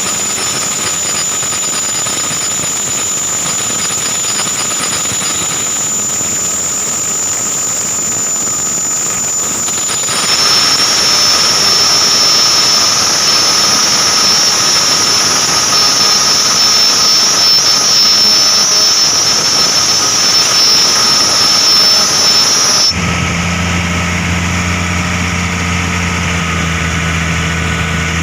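AC fan belt making an abnormal, steady high-pitched squeal over the running machinery. About ten seconds in the squeal gets louder and drops a little in pitch. Near the end it cuts to a low steady hum.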